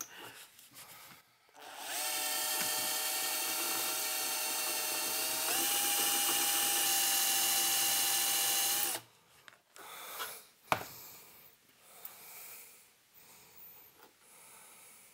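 Cordless drill running for about seven seconds as the bit works a hole in the metal amplifier chassis sideways to enlarge it. It makes a steady whine whose pitch steps up about halfway through. A single sharp click follows a couple of seconds after the drill stops.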